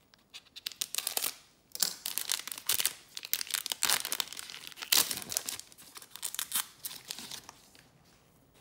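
Heavy-duty foil trading-card pack being slit with a box cutter and torn open, the foil wrapper crinkling and crackling irregularly. It quietens near the end.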